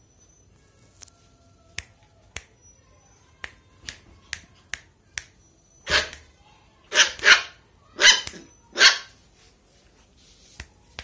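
A Lhasa apso puppy giving about five short barks in quick succession in the second half, after a run of about eight sharp clicks.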